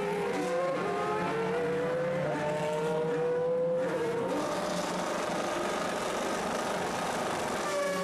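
Formula Renault 3.5 race cars' V8 engines running at low revs as the cars pull away down the pit lane, several engine notes at once. One note rises steadily for about two seconds, then falls away a little before the middle.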